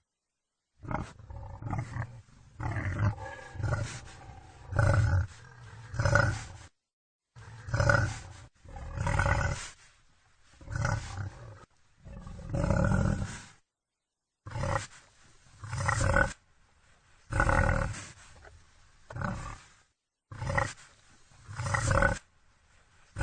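Wild boar calling over and over: loud, rough calls about a second long, roughly one every one to two seconds. The sequence drops to dead silence for a moment three times, where separate recordings are joined.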